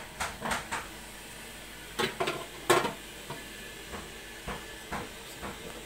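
Metal cooking pot and lid clattering as the lid is handled and set on the pot: a few light knocks in the first second, a loud clash about two seconds in and a sharper, louder one just after, then several small clicks.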